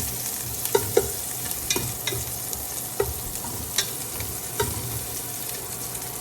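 Sliced onions sizzling in hot oil in a pan as they are sautéed and stirred, with the cooking utensil clicking against the pan every second or so.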